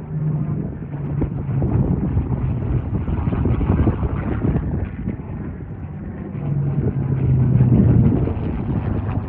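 P-51 Mustang's V-12 piston engine running, a low rumbling drone that swells louder about two-thirds of the way through, with wind buffeting the microphone.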